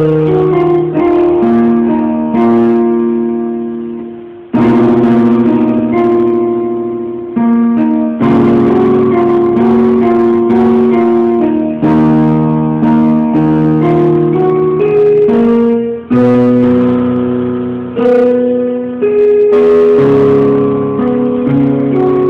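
Electronic keyboard played with a piano voice: chords struck every second or two under a melody, each note fading away until the next strike.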